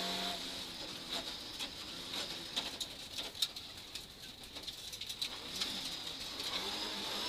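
Rally car on a gravel stage, its engine faint, with many scattered sharp clicks and ticks of gravel and stones striking the car as it slows and turns at a junction.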